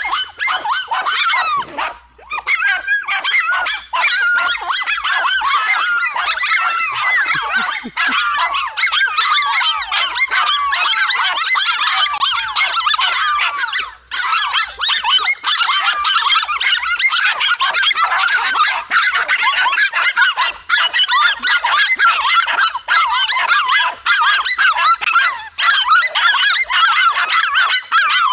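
Several dogs barking and yapping without pause at a monitor lizard they have cornered, their high, rapid barks overlapping. The barking dips briefly about two seconds in and again about halfway through.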